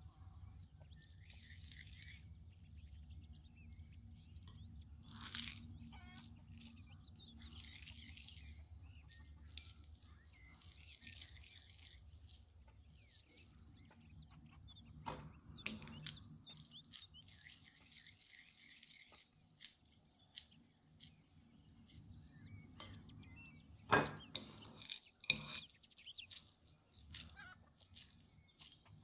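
Raw ground beef being squished and rolled between the hands into meatballs: soft wet squelching and smacking, with a few sharp taps, the loudest near the end.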